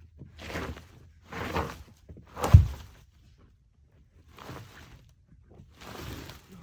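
Repeated knocks and cracks of wood as a protruding branch is broken back on a trailside tree, about one a second, the loudest a sharp crack with a heavy thud about two and a half seconds in.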